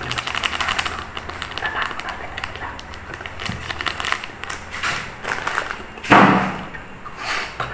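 Plastic bag crinkling and crackling as chili is shaken from it into a plastic cup, with many quick small rustles. A loud sudden sound comes about six seconds in.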